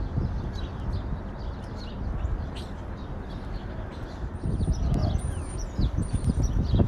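Small birds chirping over a steady low rumble of city noise. From about four seconds in, a run of short, high, level notes joins the chirps, and a few low thumps come near the end.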